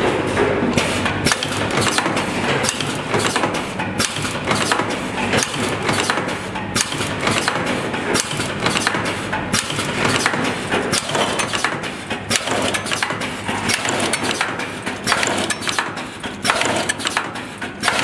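Pneumatic power-cord processing machine running: its clamp conveyor and air-driven tooling clatter in a dense, irregular stream of clicks and knocks.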